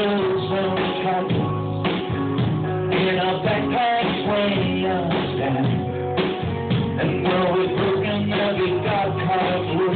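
Live band playing a roots-rock song with guitars and drums, with a melody line gliding in pitch. It sounds dull, with no highs, as from a phone recording.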